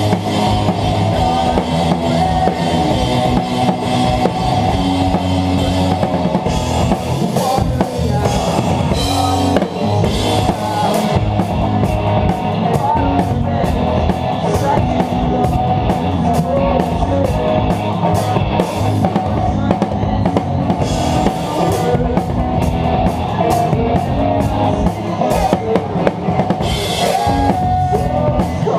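Rock band playing live, with a drum kit up front: bass drum, snare and cymbals driving under the held notes of the other instruments. The drumming turns to fast, even strokes about eleven seconds in.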